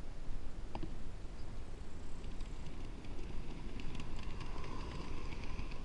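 Small live-steam garden locomotive running slowly along its narrow-gauge track, with a faint hiss of steam and a scatter of light metallic ticks from about two seconds in, over a low steady rumble.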